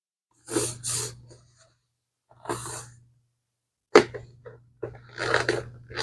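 A person's short breathy bursts, a quick pair and then a single one, like a sneeze or sharp exhale, followed by a sharp click about four seconds in.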